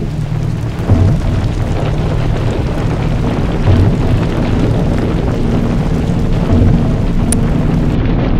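Ambient drone soundtrack: a dense, low rumbling wash with steady held tones, swelling a few times.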